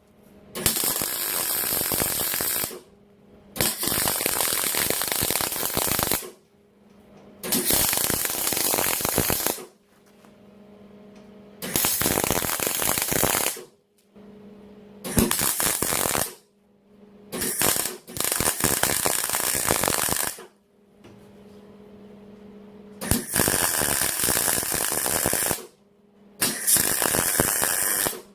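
MIG welder laying short weld runs on steel frame blanking plugs: about eight crackling bursts of two seconds or so each, with short pauses between them. A steady low hum carries on through the pauses.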